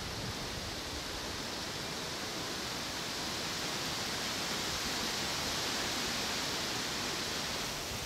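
Wind rustling through dry reeds and autumn leaves: a steady, airy hiss that swells a little past the middle and eases near the end.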